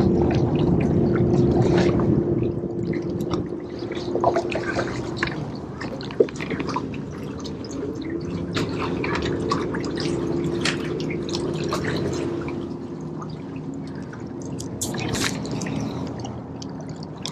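Bow-mounted electric trolling motor humming steadily as it moves the boat. It cuts out for a couple of seconds about five seconds in and then comes back on. Water laps and splashes against the hull throughout.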